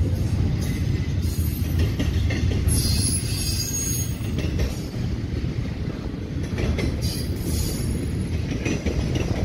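Double-stack intermodal freight train cars rolling past with a steady low rumble, and high-pitched wheel squeal coming and going twice, about three seconds in and again near the end.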